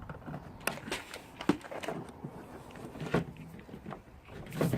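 Scattered plastic clicks and knocks as hands work at the back of a car headlamp housing, reaching for a bulb holder, with a few louder taps.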